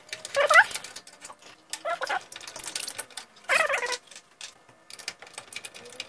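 Light metallic clicks and rattles of the steel expansion-slot covers being worked loose at the back of the PC case. Three short rising whine-like calls stand out over them, about half a second, two seconds and three and a half seconds in.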